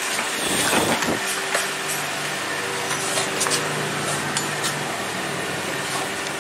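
Steady workshop hum and noise with a few light clicks and knocks from handling.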